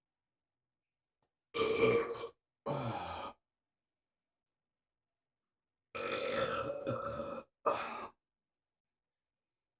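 A man burping four times: two short burps about a second and a half and nearly three seconds in, then a long drawn-out burp about six seconds in, followed closely by a short one.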